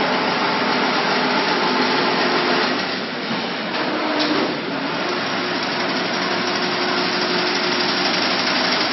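Automatic chain link fence machine running: a steady, dense mechanical clatter and whir with a faint hum under it, easing off briefly about three seconds in and again around five seconds.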